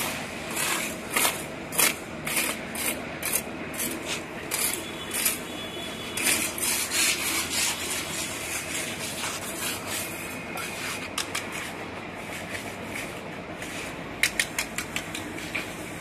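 Small engine of a concrete needle vibrator running steadily, with repeated short rasping bursts over it and a quick run of clicks near the end.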